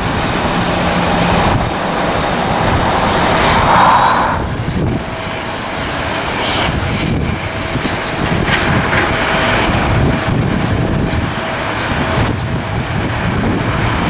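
Wind buffeting the camera microphone in gusts over a steady background rumble, with a faint steady hum through the middle.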